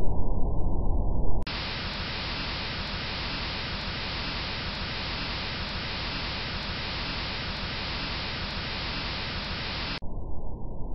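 Low spaceship rumble for about the first second and a half, then an abrupt switch to a steady hiss of air with faint ticks about once a second while crawling through an air duct. The low rumble cuts back in about a second before the end.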